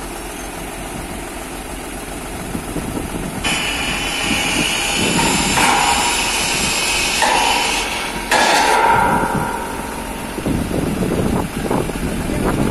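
Tractor engine running under load as the cage-wheeled tractor climbs steel ramps onto a trailer. From about three and a half seconds in, a harsh metal-on-metal screeching from the steel cage wheels on the steel ramps lasts several seconds, followed near the end by a run of irregular clanks.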